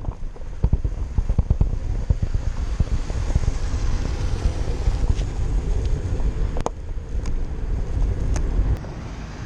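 Wind rushing over the action-camera microphone as a bicycle coasts fast down a steep, potholed descent, the bike knocking and rattling over the rough surface, most densely in the first few seconds. The rush eases near the end.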